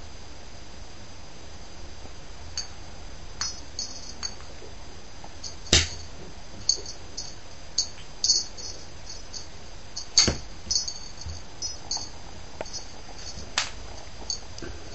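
Small bell on a cat's feather toy jingling in short, irregular spurts as the toy is batted about, with a few sharp knocks on the wooden floor, the loudest about six and ten seconds in.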